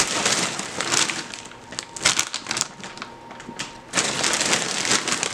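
Large plastic bags of cereal crinkling and rustling as they are picked up, shifted and set down on a table. The crinkling comes in spurts, with a lull of about a second past the middle.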